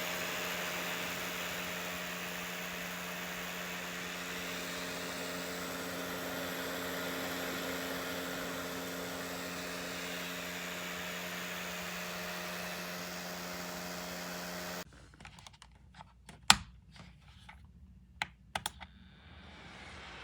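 A plug-in wall-outlet space heater's fan running with a steady whoosh and a low hum; it cuts off suddenly about three quarters of the way through, and a few sharp clicks follow, like its control buttons being pressed.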